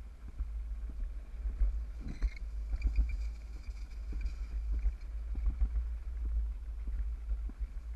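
Alpine slide sled running down its trough-shaped track: a steady low rumble with irregular knocks and rattles as it bumps along.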